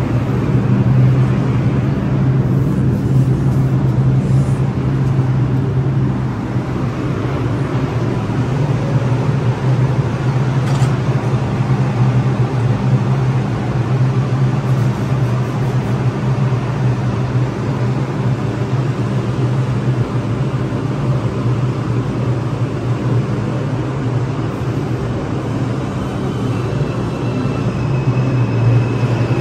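R142 subway train standing at an underground platform, its equipment giving a loud, steady low hum. Near the end a thin high whine starts up as the train begins to pull out.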